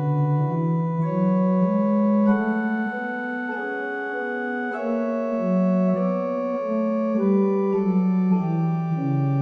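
Pipe organ playing a slow succession of held chords, the bass line stepping from note to note about once a second.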